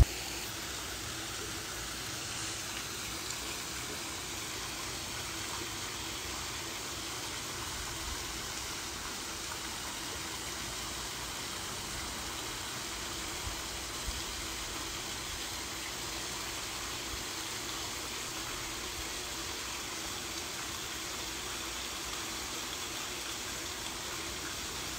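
Steady, even hiss of outdoor background noise with a faint low hum, with two faint ticks near the middle.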